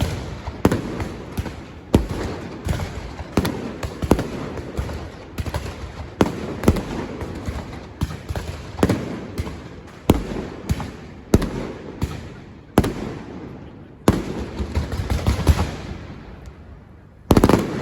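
Fireworks and firecrackers going off in a rapid, irregular series of sharp bangs, about one or two a second. A dense rattle of cracks comes just before the end.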